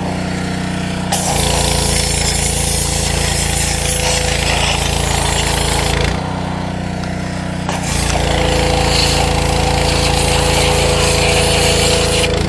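A pressure washer runs steadily while its wand blasts high-pressure water onto metal traps and concrete. The spray cuts in about a second in, stops for about a second and a half around halfway, then resumes.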